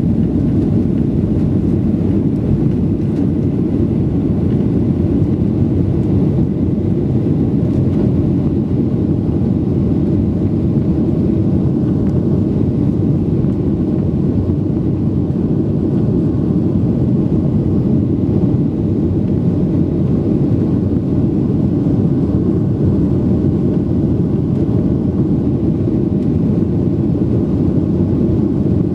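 Jet airliner at takeoff power, heard from inside the passenger cabin: a loud, steady, low rumble of engines and airflow through the takeoff and initial climb.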